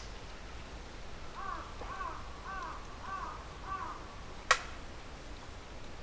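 A crow cawing five times in a row, its calls about half a second apart, followed about a second later by a single sharp click, the loudest sound.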